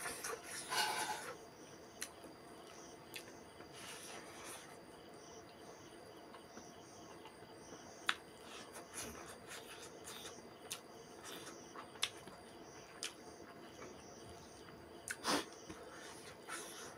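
Eating by hand: rice and fried fish chewed with wet mouth clicks and lip smacks, and brief rustles as fingers mix rice on a banana leaf. The clicks are scattered and irregular, with a few louder rustling bursts near the start, about four seconds in, and about fifteen seconds in.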